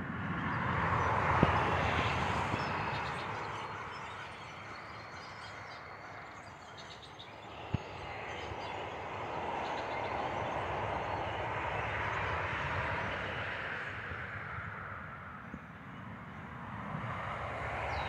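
Road traffic passing, a rushing tyre-and-engine noise with a low rumble that swells and fades twice, with two sharp knocks about a second and a half in and near the middle.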